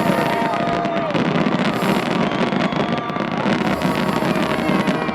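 Fireworks display: a dense, continuous crackling and popping of many shells bursting at once.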